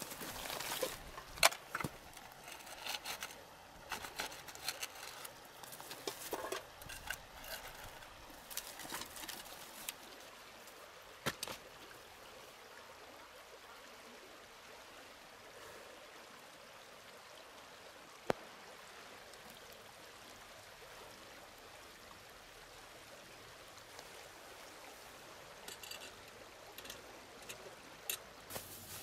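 Steady rush of a river flowing over its bed. Scattered clicks and knocks from gear being handled come through in the first ten seconds or so, with a few sharp single clicks later.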